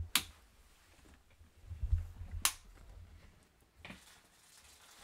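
Two sharp clicks about two seconds apart, with low thumps between them and a softer knock near the end: handling and movement noises of a person moving about.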